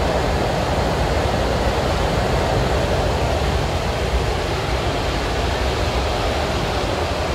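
Interior running noise of an MTR C-Train electric multiple unit travelling between stations: a steady rumble and rush of wheels on rail and air past the car, with no clicks or rhythm and no change in level.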